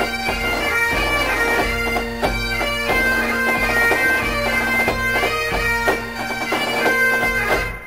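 Pipe band playing: bagpipes with a steady drone under the chanter melody, and a bass drum beating. The band stops together near the end on the last note of the tune, which rings away.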